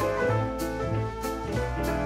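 Instrumental background music: sustained notes over a steady bass line, with light percussion ticks about twice a second.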